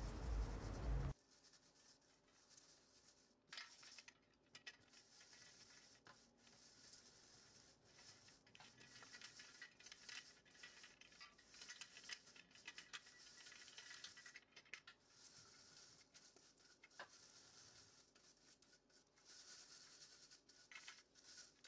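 Faint scratchy rustling as a hand rubs dried cornelian-cherry tarhana crumbs through a perforated stainless-steel sieve, with small grains pattering into the metal pan below.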